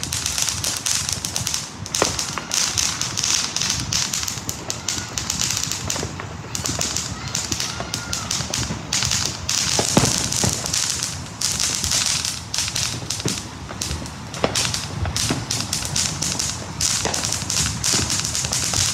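Ground fireworks crackling in dense, rapid pops, with several louder bangs scattered through.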